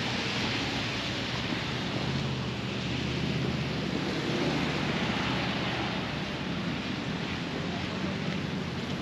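Steady city street traffic noise on a wet, slushy road: an even hiss over a low rumble.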